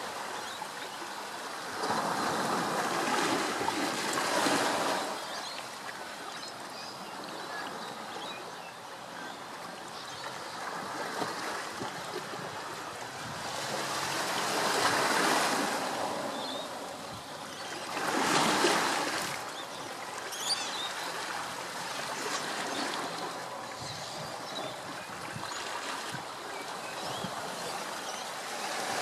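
Surf washing in, a rushing noise that swells and fades every few seconds.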